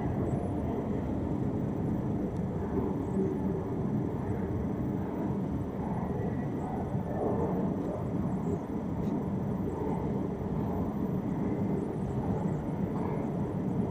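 Steady low rumble of a long escalator running on its descent, mixed with the ambience of a deep underground station hall.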